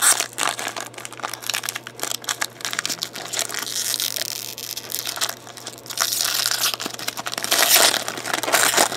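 Foil wrapper of a thick baseball trading-card pack being torn open and crinkled by hand, a continuous crackling rustle with sharp clicks, loudest about four seconds in and again near the end.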